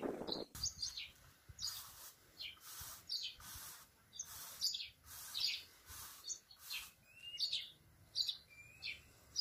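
Small birds chirping quietly: about a dozen short, high chirps, roughly one every half second to a second, one of them a short rising note.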